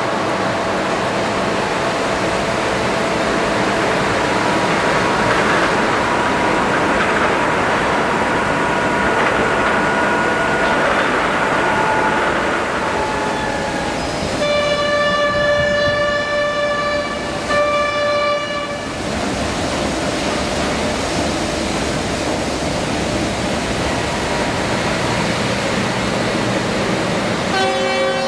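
A steady noise of a train running, with a locomotive horn sounding one long blast and one short blast on a single note about halfway through. Another horn blast starts right at the end.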